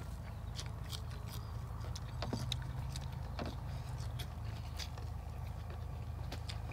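Several people eating noodles with chopsticks: scattered slurps, mouth smacks and short clicks over a steady low hum.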